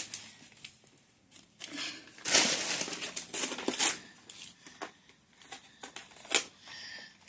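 Gift packaging crinkling and rustling in short bursts as it is handled, with a few sharp clicks, the loudest near the end.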